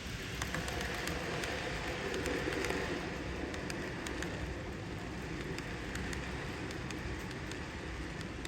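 N-gauge model freight train running on the layout track: a steady rolling hiss with a faint motor hum, swelling briefly in the first few seconds, and scattered light clicks from the wheels on the rails.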